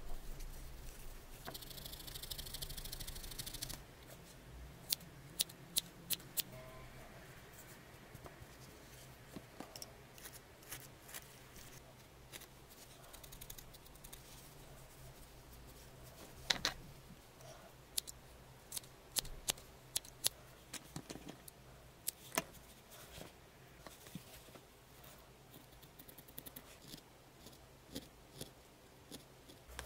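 Needle-felting handwork: a brief crisp rustle of wool fibres near the start, then scattered sharp little clicks and crunches as a felting needle jabs wool into a felted cat head.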